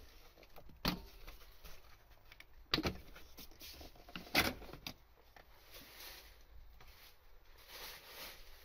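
Plastic engine cover of a BMW F10 M5 being pulled up off its mounts by hand: three sharp pops or knocks, the loudest about four and a half seconds in, with faint rustling of handling between them.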